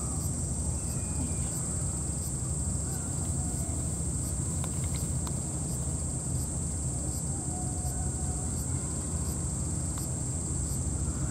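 Cicadas droning in a steady high-pitched chorus over a low rumble, with a few faint clicks about halfway through.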